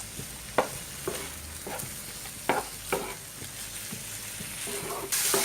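A utensil stirring a herb-and-spice mixture frying in butter in a frying pan: a steady sizzle with several sharp knocks of the utensil against the pan. The sizzle grows suddenly louder near the end.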